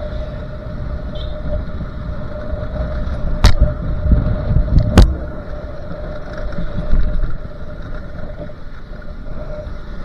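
Wind and road rumble on a motorcycle-mounted camera's microphone while riding in traffic, with a steady engine hum underneath. Two sharp knocks come about a second and a half apart near the middle.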